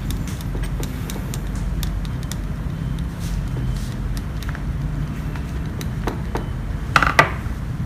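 Small metal clicks and scrapes of a screwdriver turning the set screw that holds a nozzle on a hot air rework handpiece, over a steady low rumble, with a louder clatter about seven seconds in.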